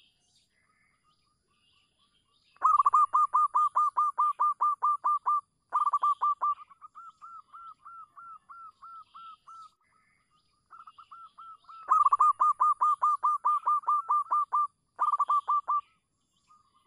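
Zebra dove calling: fast runs of short, repeated cooing notes, about five a second. The calls come in loud runs of a few seconds, with softer runs of the same notes in between.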